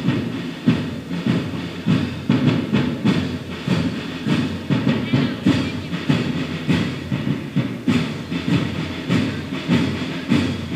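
A steady rhythmic beat of short, evenly repeating knocking strokes.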